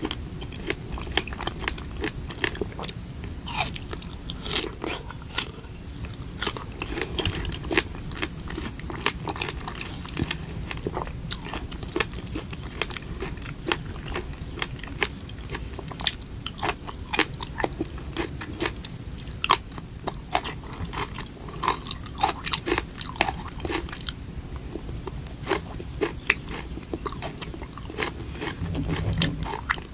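Close-miked eating: a person biting and chewing food, with many sharp, crunchy clicks throughout.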